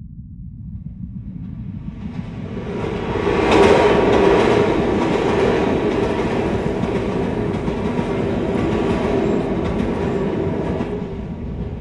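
A passenger train running along the track. The rumble builds over the first few seconds, is loudest about four seconds in, holds steady, and eases off near the end.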